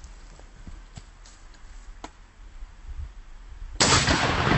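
A Remington 870 12-gauge pump shotgun fires a single shot near the end: a sharp blast that dies away slowly. Before it there are only a few faint clicks.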